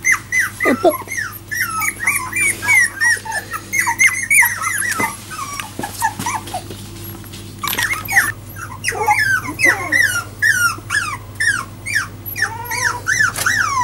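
Four-week-old Jack Russell Terrier puppies whining and squeaking: many short, high calls that fall in pitch, several a second, with a brief lull midway.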